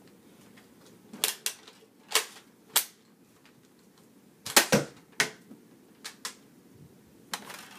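Plastic toy blaster being worked by hand: about ten sharp plastic clicks and snaps at uneven intervals, the loudest a little past the middle, as it is primed and the trigger is pulled.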